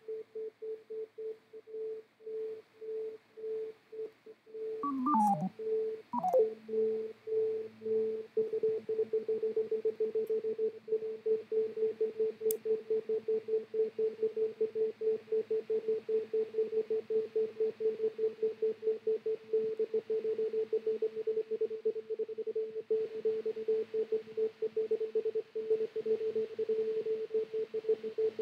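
A steady electronic tone pulsing about twice a second. About five seconds in, two quick falling pitch sweeps sound, a lower tone joins, and the pulsing becomes much faster.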